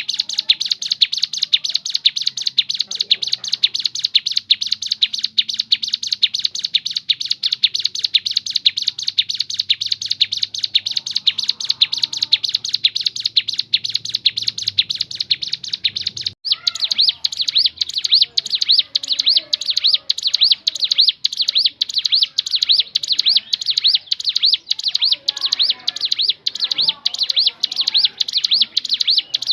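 Ciblek gunung (a prinia) singing a long, unbroken string of high, rapid chirps, several a second. About halfway through it changes to slightly more spaced, sweeping chirps.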